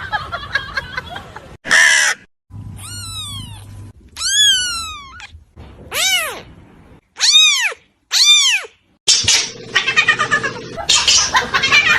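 A cat meowing about five times in a row, each meow a high cry that rises and falls in pitch. A busier, noisier mix of sounds takes over in the last few seconds.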